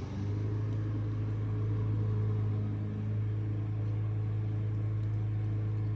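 A steady low machine hum, louder from the start and holding one pitch throughout.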